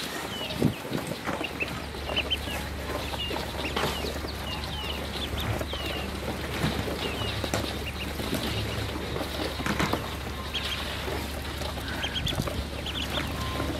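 Ducklings peeping: many short, high cheeps scattered throughout, with sharp taps of their bills pecking feed off the floor of a plastic tub. A low steady rumble runs underneath.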